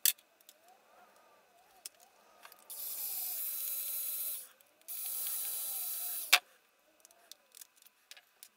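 Cordless screwdriver running in two bursts of about a second and a half each, with its bit on a screw in a wooden block. A sharp knock follows right after the second burst.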